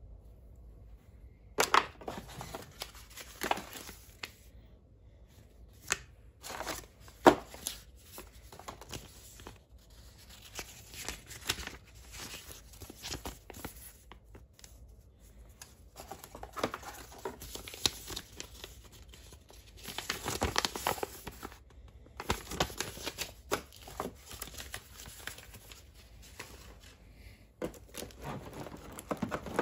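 Unboxing handling noises: paper and plastic packaging rustling and crinkling while a cable and a paper quick-start guide are handled, with scattered sharp clicks and knocks against a hard plastic tool case.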